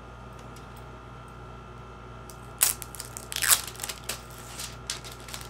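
Plastic shrink-wrap crinkling and crackling as it is pulled off an eyeshadow palette, in a run of sharp bursts starting about halfway through and tailing off near the end.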